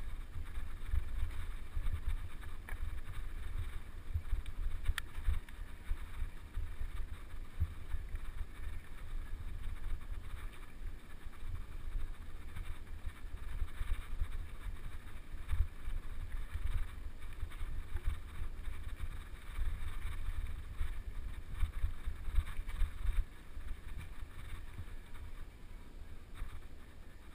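Wind buffeting the microphone of a camera riding on a mountain bike: a choppy low rumble, with the crunch and rattle of the bike rolling over a dirt trail.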